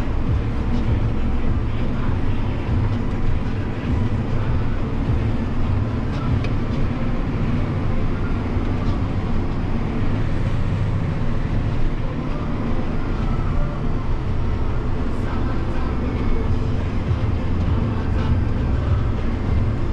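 John Deere 7250R tractor's six-cylinder diesel engine running steadily as it tows a grain trailer across field stubble, heard from inside the cab as a constant low rumble.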